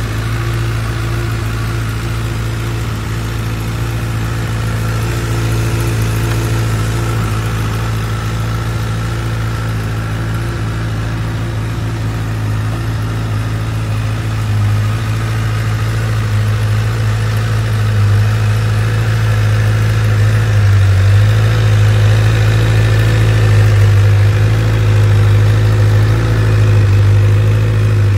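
Honda CBR1000RR's inline-four engine idling steadily through its exhaust, a little louder in the second half.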